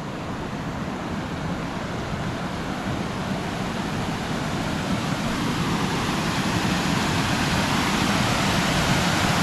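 Small waterfall: a steady rush of falling water, growing steadily louder as it is approached.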